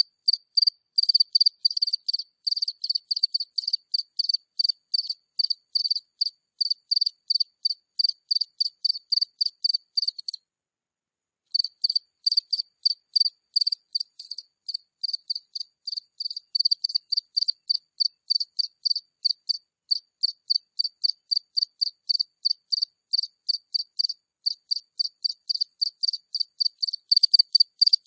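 A single cricket chirping close up: a steady run of short, high chirps, about three a second, with a pause of about a second near the middle.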